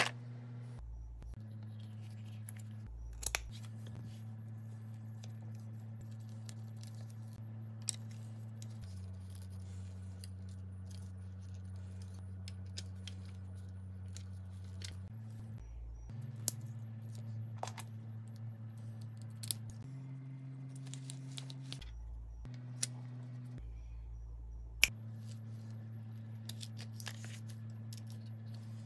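Scattered sharp clicks and light rattles of a plastic and metal GorillaPod tripod kit being handled and fitted together, over a steady low hum that shifts in pitch every few seconds.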